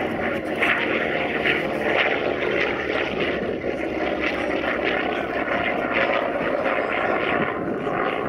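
Vought F4U Corsair's Pratt & Whitney R-2800 radial engine and propeller running steadily at power as the fighter flies past.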